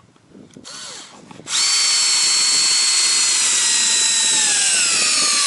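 Cordless drill-driver driving a screw through a wooden ladder step into a tree trunk. After a brief short run about a second in, the motor runs loudly and steadily for about four seconds, its whine dropping in pitch near the end.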